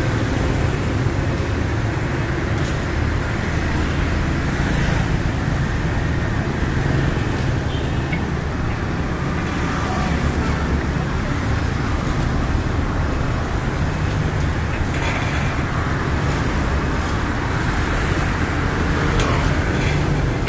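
Street traffic: motor scooters and cars passing on a busy road, a steady rumble of engines and tyres with passing swells now and then.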